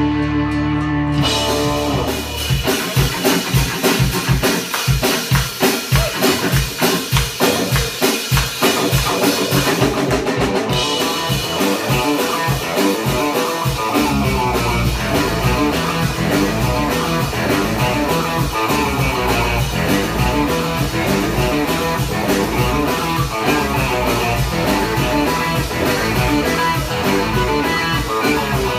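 Rock band playing the instrumental opening of a song: a held chord at the very start, then a steady drum beat, with the bass end filling out about halfway through.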